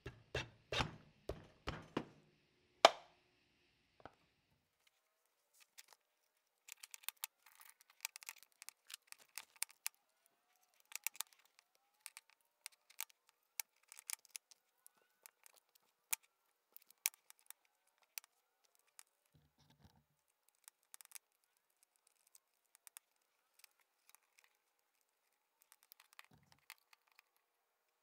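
Scattered light clicks and taps of metal parts being handled and fitted together as a cast metal handle is set onto the body of a 1930s Syntron electric hammer. About three seconds in, a quick run of rhythmic knocks ends with one sharp hit.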